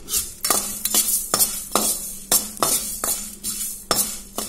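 Metal spatula stirring and scraping whole spices as they dry-roast in a kadai without oil, the seeds rattling against the pan, about two to three strokes a second.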